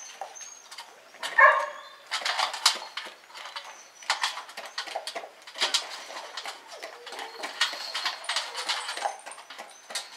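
Sled dogs moving about in a kennel barn: scattered clicks and rustles, with one short dog whine about a second and a half in.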